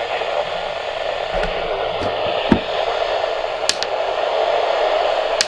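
Weather radio receiver hissing with steady static, with a few faint clicks.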